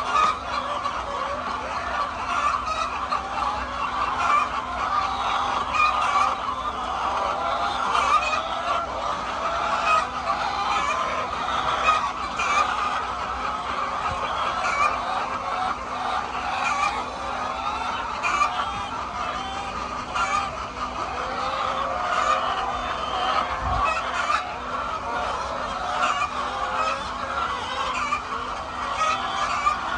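A large flock of laying hens clucking and calling all at once, a continuous din of many overlapping calls, with a steady low hum underneath.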